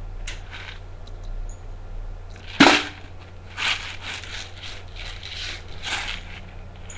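A single sharp knock about two and a half seconds in, the loudest sound, followed by several softer, short rustling noises, over a steady low hum.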